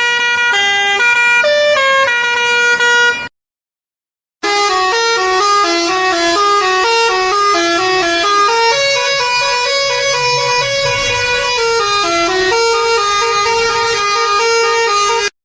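Musical bus horn playing a tune of quick stepped notes, cutting off about three seconds in; after a second of silence, a second, longer tune plays and stops near the end.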